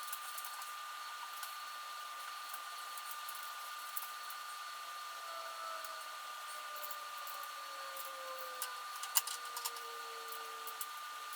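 Steady mechanical hum with a thin high whine, a lower tone that slowly falls in pitch in the second half, and scattered light clicks near the end.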